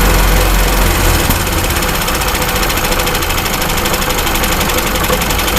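Vehicle engine running, its note changing about a second in, with a rapid rhythmic knock at idle that the owner places around the driveshaft between engine and gearbox but cannot pin down.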